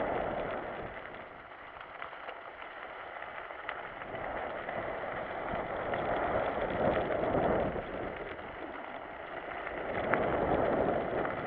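Riding noise of a mountain bike on a wet gravel trail: tyres on gravel, rattles and wind on the microphone, a steady rushing that swells and eases a few times, with small clicks.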